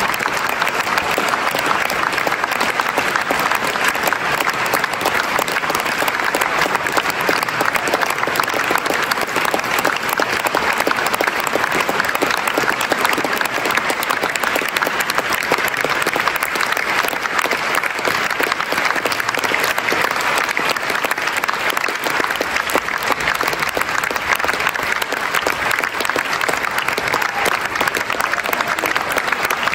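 Audience applauding: dense, even clapping that holds steady without a break.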